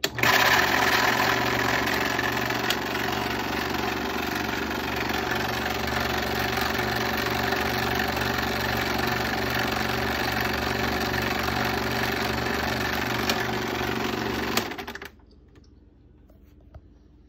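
Bell & Howell 2580 16mm film projector switched on and running. It starts abruptly, runs steadily, and stops about fifteen seconds in.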